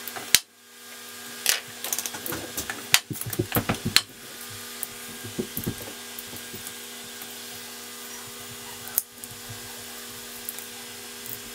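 Adhesive tape being peeled off the back of a laptop LCD panel, with handling of the panel. A sharp click comes just after the start, then a run of crackles and taps for about two seconds, then only a few light ticks over a steady low hum.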